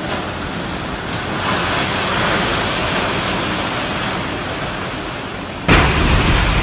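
Typhoon wind rushing as a dense, steady hiss, swelling a little after a second or so. Near the end it turns suddenly louder, with low wind buffeting on the microphone.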